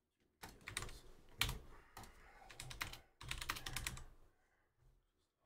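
Typing on a computer keyboard: irregular runs of keystroke clicks for about four seconds, then the typing stops.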